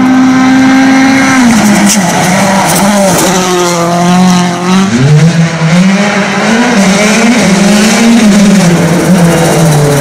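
Two WRC rally cars with 1.6-litre turbocharged four-cylinder engines. A Citroën DS3 WRC holds a steady high engine note for about a second, then its revs fall and waver as it slows. About halfway through, a Hyundai i20 WRC takes over, its revs rising and falling again and again through gear changes and throttle lifts.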